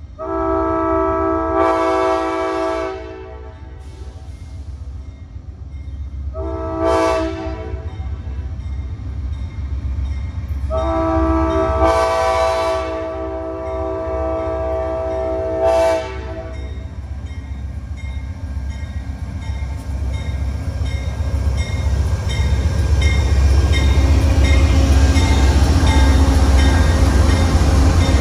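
Horn of a GE Genesis diesel locomotive: a multi-tone chord sounded as a long blast, a short blast, then a long blast. Under the horn the low rumble of the approaching train's diesel engine and wheels grows steadily louder toward the end.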